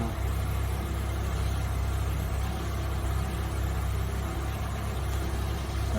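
Suzuki Samurai's carbureted four-cylinder engine idling steadily while not yet fully warmed up, running fairly smooth but shaking slightly. It is being checked for a rough idle by swapping the spark plug wires.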